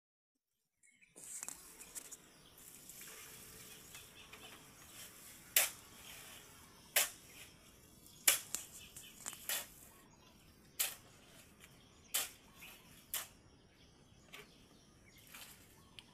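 Sharp, short clicks and knocks about every second and a half, like metal tools striking a metal pail as concrete mix is scooped and tipped, over a faint outdoor background. The sound cuts in about a second in.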